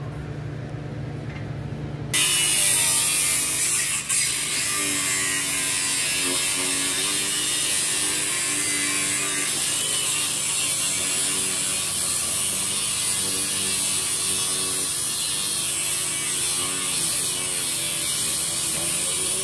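A loud, steady mechanical noise starts abruptly about two seconds in and runs on evenly, over a low steady hum.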